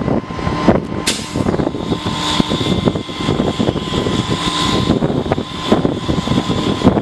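Heavy-duty rotator tow truck's diesel engine running steadily during a recovery lift, with a thin steady whine and a sharp knock about a second in, then scattered smaller clicks.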